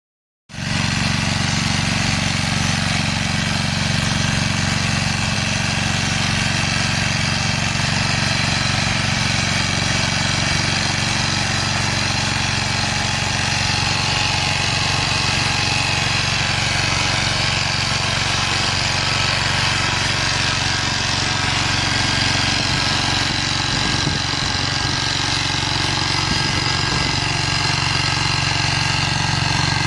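Engine of a rotary tiller converted into a ride-on tractor, running steadily while it tills soil. The sound holds an even pitch and level, starting abruptly about half a second in.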